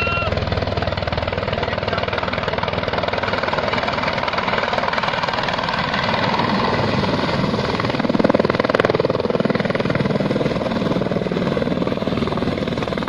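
Helicopter flying overhead, its rotor chop steady and rapid throughout, swelling louder about eight seconds in. A brief whistle-like tone sounds at the very start.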